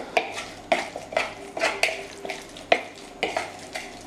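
Stirring a thick chermoula marinade, with olives just added, in a plastic mixing bowl. It is a series of short scraping strokes against the bowl at about two a second.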